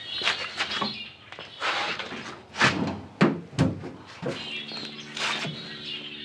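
Series 1 Land Rover bonnet being lowered and shut, a string of sharp metal thunks and clanks, as a test that it clears a new homemade carburettor air intake box. Birds chirp throughout, and a steady low hum starts about four seconds in.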